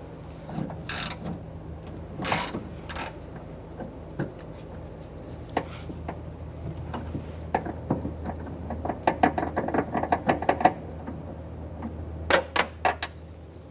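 Socket wrench ratchet clicking in quick even strokes, with scattered clicks and knocks of a socket and extension against the metal door, as a 5/16 nut holding the exterior door handle is worked loose. A steady low hum runs underneath.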